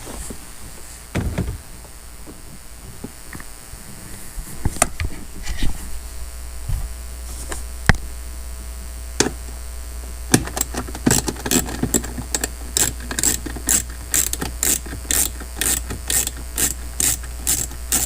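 Hand-tool work on a screw in a car's console: a few scattered knocks and handling sounds, then, from about ten seconds in, a steady run of sharp clicks about two or three a second, typical of a ratcheting tool turning the screw out.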